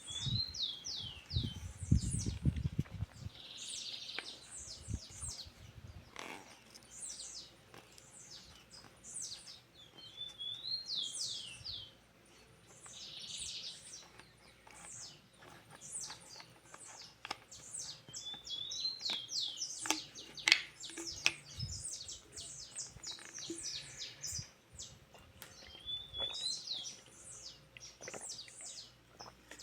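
A songbird singing the same phrase over and over: a few short rising notes followed by a quick run of high, falling notes, repeated every few seconds. A brief low knocking noise comes about two seconds in.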